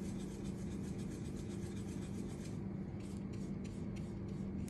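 A watercolor paintbrush rubbing and scrubbing, first in quick dense strokes, then about halfway through in separate back-and-forth strokes of yellow paint across watercolor paper. A steady low hum runs underneath.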